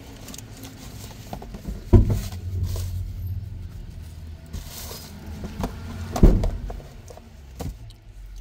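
Handling noises inside a car: two dull thumps about four seconds apart, the first followed by a low rumble, and a brief papery rustle between them as a tissue is pulled out and handed over.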